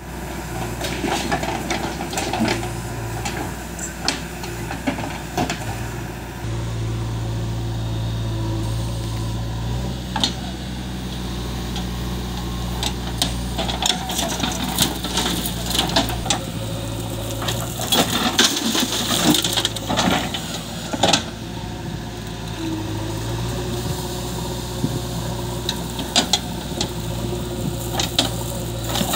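JCB 3DX backhoe loader's diesel engine running steadily, its note shifting several times as the digging arm and bucket work. Over it, clods of earth and stones clatter into a steel tractor trolley, most densely a little past halfway.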